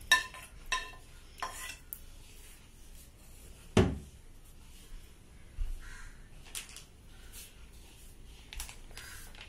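Steel pot knocked against a stainless steel bowl, a run of ringing metal clinks that stops about a second and a half in. A single heavy thud follows about four seconds in, then a few faint knocks.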